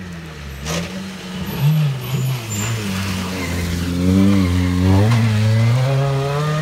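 Rally car engine revving hard on a special stage as the car brakes into a hairpin and accelerates out. The engine pitch drops and climbs again with each gear change, and there is a sharp crack about a second in.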